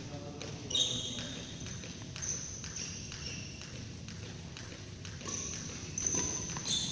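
Badminton court sounds echoing in a large hall: brief high-pitched squeaks of court shoes on the floor, several times, over a run of sharp knocks of play.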